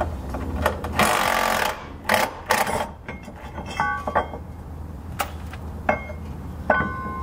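Cordless power tool with a 13 mm socket running briefly, undoing a bolt under the car, followed by several sharp metal knocks and a few short ringing clinks of tools and parts.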